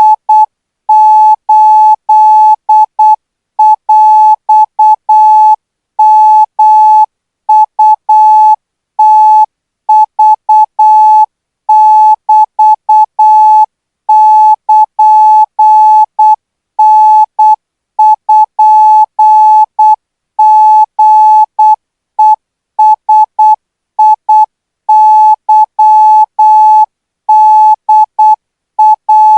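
Morse code practice signal for Thai radio operators, sent at 12 words per minute: a single mid-pitched tone keyed on and off in short dots and longer dashes, with brief gaps between letters and words.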